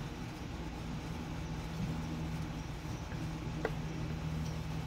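Steady low hum over a low rumble, with one brief faint squeak about three and a half seconds in.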